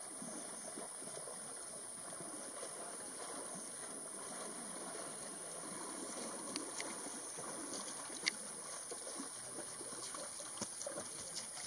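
Water moving and splashing as Asian elephants wade and bathe in a shallow river, with a few sharp clicks, the loudest about eight seconds in.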